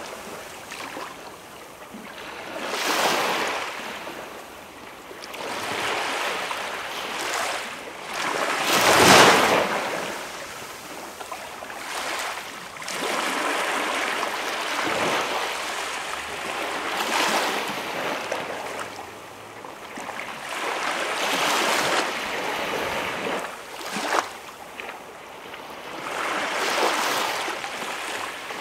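Small waves breaking and washing on a calm beach, the surf swelling and subsiding every few seconds, with the strongest surge about nine seconds in.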